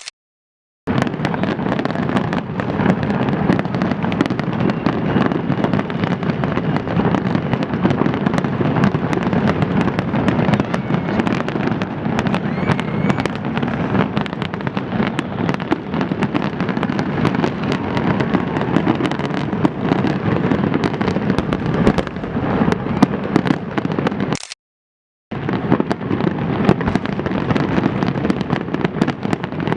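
Fireworks display going off in a dense, continuous barrage of rapid bangs and crackling, with no let-up. The sound drops out to total silence twice, briefly right at the start and again about 25 seconds in.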